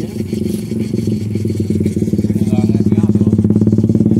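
A small engine running steadily close by, with a fast pulsing note that gets a little louder about two seconds in.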